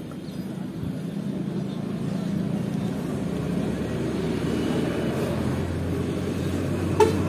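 A low motor-vehicle rumble that grows slowly louder, with a horn starting to toot at the very end.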